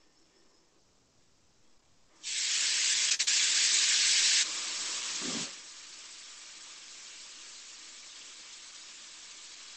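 A steady hiss of noise that starts suddenly about two seconds in, loud at first. It drops to a softer, even hiss about three seconds later.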